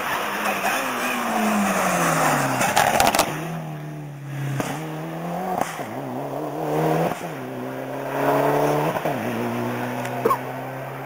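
Rally car passing at speed. Its engine note falls as it slows for the corner, with a burst of sharp pops about three seconds in, then it accelerates away through several gear changes, the pitch climbing and dropping back with each shift.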